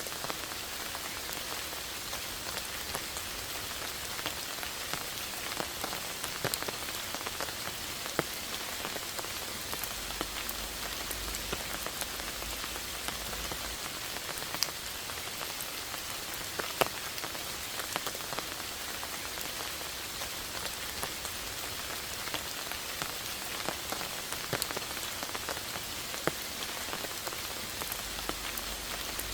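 Steady rain falling: a constant even hiss, with scattered single drops landing louder, a few of them standing out clearly.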